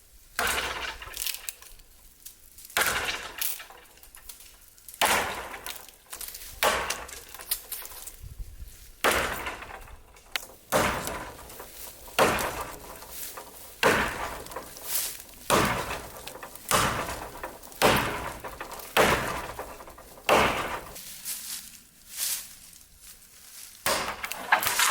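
A series of sharp, crisp crunching impacts, irregular at about one a second.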